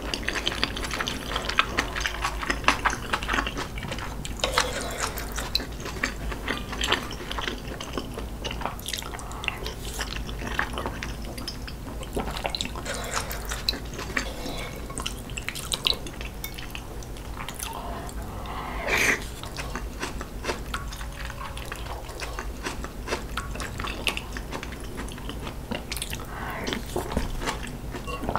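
Close-miked eating sounds: wet chewing and sipping of egg soup, with many small mouth clicks and occasional knocks of the spoon and chopsticks on the bowls.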